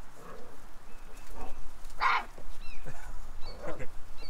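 Four-week-old Great Pyrenees puppy crying out as it is lifted: one short, sharp yelp about two seconds in, with softer squeals and whines before and after.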